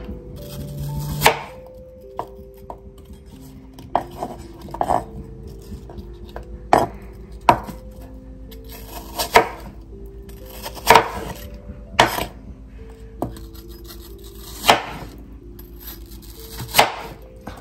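Chef's knife chopping peeled apple into cubes on a wooden cutting board: about a dozen sharp knocks of the blade hitting the board at uneven intervals.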